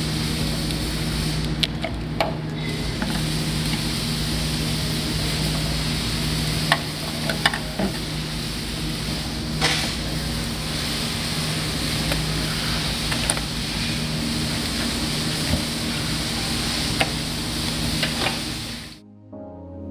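Steady workshop background noise with a low hum, broken by scattered sharp clicks and snaps from plastic wiring connectors and hoses being handled at a fuel tank's pump module.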